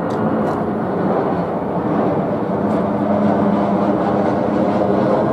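Airbus A319-111 airliner's twin CFM56 turbofan engines on approach, passing low overhead: a loud, steady rumble with a low drone, growing a little louder.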